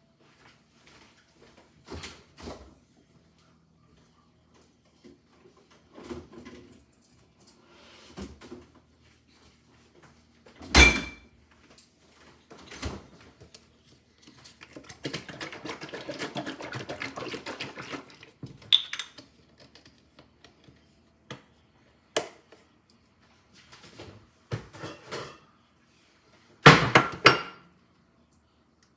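Kitchen handling sounds: scattered knocks and clatter of dishes and utensils, with one loud thunk about eleven seconds in and a louder burst of clatter near the end. Midway there are a few seconds of steady rustling noise.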